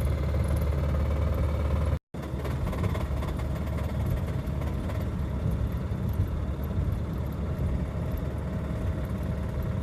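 Honda D16Y7 four-cylinder engine running under way with a knock from a spun rod bearing. The sound breaks off for a split second about two seconds in.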